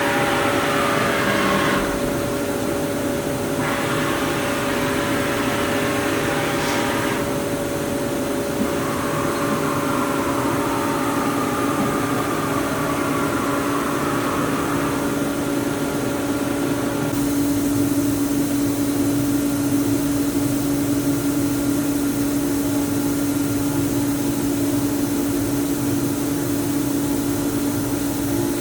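AVEA BM 1600 vertical machining center running under power: a steady machine whir and hum with a few steady tones. The tone shifts several times, most clearly about 17 seconds in, when a higher tone drops away and a lower one grows stronger.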